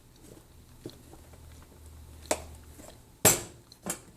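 Hard chunks of baked cornstarch clicking and snapping: four short, sharp cracks, the loudest a little past three seconds in.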